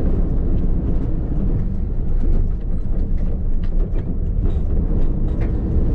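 Diesel recovery truck driving, heard from inside the cab: a steady low engine and road rumble with scattered light clicks and rattles.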